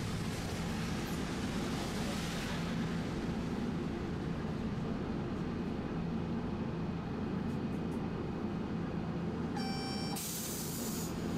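Streetcar running in heavy rain, with a steady low hum of the motors and wheels on the rails under a constant wash of rain noise. Near the end comes a short beep, followed at once by a brief hiss.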